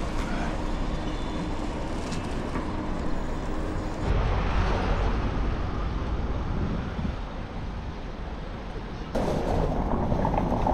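Wind buffeting a bicycle's handlebar-mounted camera microphone while riding through city streets, mixed with traffic and road noise. The sound shifts abruptly about four and nine seconds in.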